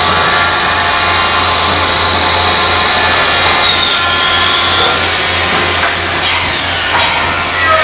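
Woodworking machinery running steadily, a dense mix of saw and dust-extraction noise with a low hum and a few whining tones. Two sharp wooden knocks near the end as boards are handled.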